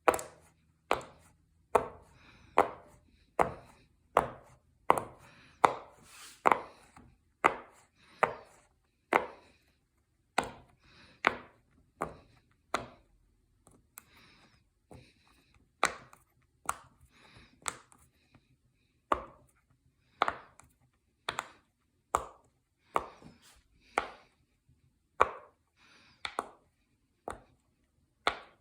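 Silicone pop-it fidget toy bubbles being pressed and popping one at a time, a steady run of sharp pops about one to two a second.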